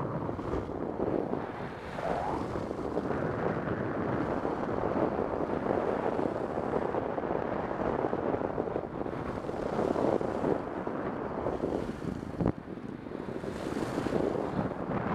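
Wind rushing over the microphone mixed with skis hissing over freshly groomed corduroy snow at speed, swelling and easing in a steady rush, with a single short click about twelve seconds in.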